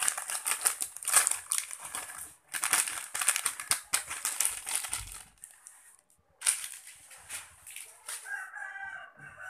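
Crisp crinkling and crackling of chocolate wafer biscuits and their plastic packaging being handled and broken into a bowl, in quick irregular bursts that die away about two-thirds through. Near the end come a few short wavering calls like a hen clucking.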